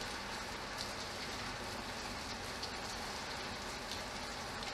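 Steady rainfall: an even hiss of rain, with a few separate drops ticking through it.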